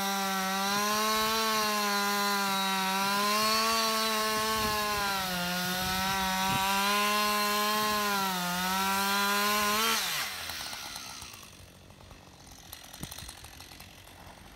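Chainsaw cutting into the trunk of a dead tree, the engine held at high revs under load, its pitch sagging and recovering as it bites. About ten seconds in the engine note falls away and the saw goes quiet.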